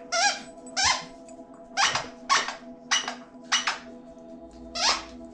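A rubber squeaky dog toy squeaks about nine times as young dogs chew it. Each squeak is short and rises in pitch, coming every half second to a second.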